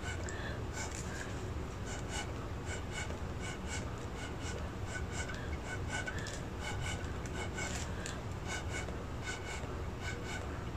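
Short puffs of breath blown through a plastic drinking straw onto wet acrylic pour paint, a few puffs each second at an uneven pace, over a faint steady low hum.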